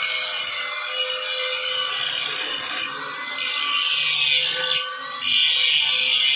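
Handheld angle grinder grinding the edge of a steel bracket plate: a grinding hiss over the motor's steady whine. It eases off briefly a few times as the disc comes off the metal and is loudest near the end.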